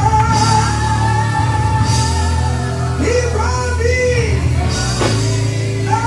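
Live gospel music from a church band with singing: long held melody notes that slide and bend over a strong, steady bass.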